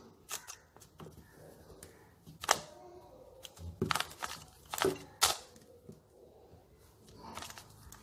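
A 3×3 Rubik's cube being turned by hand: its plastic layers clicking and clacking in short, uneven bursts, a dozen or so sharp clicks with pauses between.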